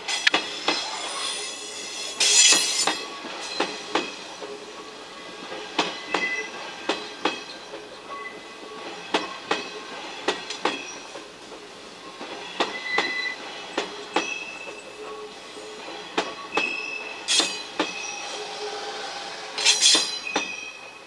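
Nishitetsu electric train running slowly into a station. Its wheels knock over rail joints in an uneven clack, with high wheel squeals, loudest about two seconds in and twice near the end.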